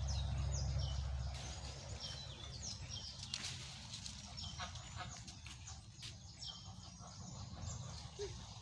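Several birds chirping, many short high calls throughout. A low rumble in the first second or so then dies away.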